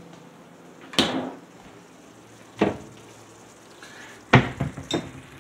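Knocks and thumps of things being handled in a kitchen: three separate knocks about a second and a half apart, the loudest near the end, followed by a few lighter clicks.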